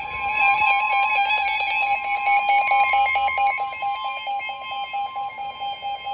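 Emergency Alert System attention signal: a steady two-tone alarm, held for several seconds, announcing the severe thunderstorm warning that follows.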